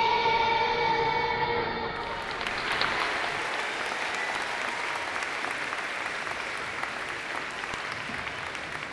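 A children's song ends on a held final note about two seconds in. Audience applause follows, many hands clapping steadily, fading slightly near the end.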